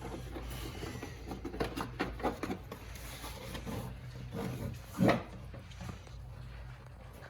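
A string of clicks and knocks from parts of a truck's air intake being handled and worked loose, with one louder knock about five seconds in.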